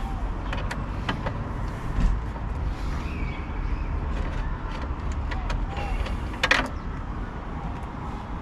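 Scattered small clicks and taps of hard plastic steering-column trim and small Torx screws being handled, with one louder clack about six and a half seconds in and a dull thump about two seconds in, over a steady low rumble.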